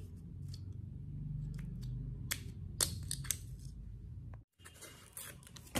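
A few sharp plastic clicks and taps as a hair-dye brush is handled and fitted back together, about two to three and a half seconds in, over a low steady hum. The sound cuts out abruptly for a moment near the end.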